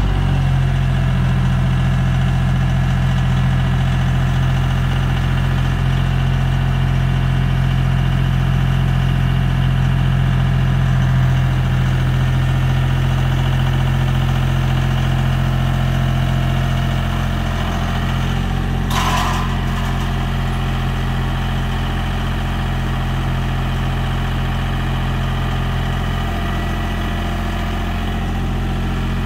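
Tractor engine running steadily, its note easing slightly a little past halfway through. One brief sharp sound stands out about two-thirds of the way in.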